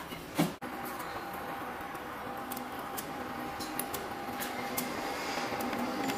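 A knock about half a second in, then the wire feeder of a laser welding machine running steadily: a thin mechanical hum with scattered light clicks, slowly getting louder.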